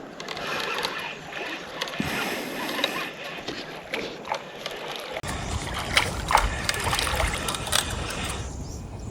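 Water splashing and sloshing as a hooked catfish thrashes at the surface while being reeled in to the bank.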